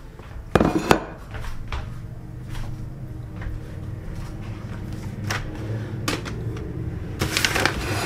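Household objects being handled: a loud double knock about half a second in, then scattered clicks and taps, and a longer scraping noise near the end, over a low steady hum.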